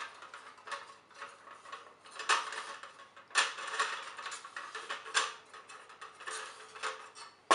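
Folding aluminium legs of a SunnCamp Micro Slat Table clicking and rattling as they are spread out, a run of light metallic clicks with a few sharper ones through it.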